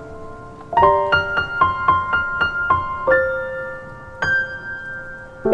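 Background music: a gentle solo piano piece. A quick run of single notes comes about a second in, then a couple of longer notes are left to ring.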